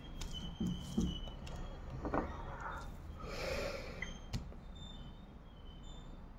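Tarot cards handled on a glass tabletop: a few light taps as cards are set down, and short rustles of cards sliding and being shuffled.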